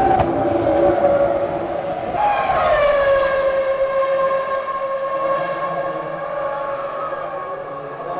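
A 2000-season Formula One car's 3.0-litre V10 engine at high revs. Its pitch drops sharply about two seconds in, then it holds a steady high note that slowly sinks.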